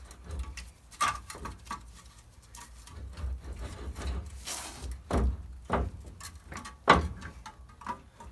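Irregular metallic knocks and clinks as a rusted wheel hub and bearing assembly is wiggled and worked loose from the steering knuckle. The sharpest knock comes about seven seconds in.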